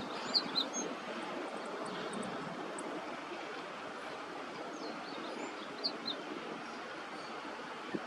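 A small songbird calls: two quick high chirps less than a second in and another pair about six seconds in, over a steady low background noise.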